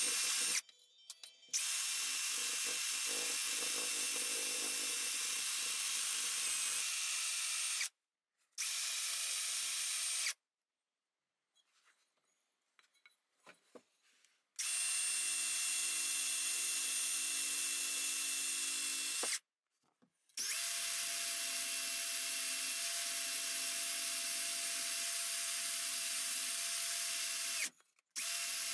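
Cordless drill spinning a wire cup brush against the metal housing of a vintage Black & Decker D520 drill, stripping the last of the paint. It makes a steady scrubbing hiss over the drill motor's whine. The sound comes in about five runs of a few seconds each that start and stop abruptly, with a few faint handling clicks in a gap around the middle.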